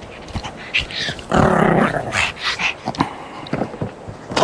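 A small dog growling once for about half a second, about a second and a half in, amid scattered clicks and rustles of the dogs being handled.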